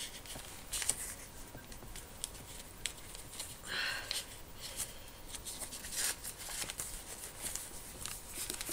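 Paper pages of a thick handmade journal rustling and flicking as they are turned and handled, with small scattered taps and one longer rustle about four seconds in.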